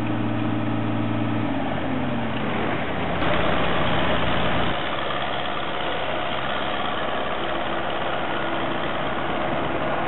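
Diesel engines of farm machinery (combine harvester and tractor) running. The sound shifts abruptly a few times: it falls in pitch about two seconds in, and is louder for a stretch from about three to nearly five seconds.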